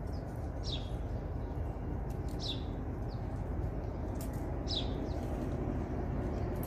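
A bird giving a few short, high chirps, each falling in pitch, about two seconds apart, over a steady low rumble of outdoor background noise.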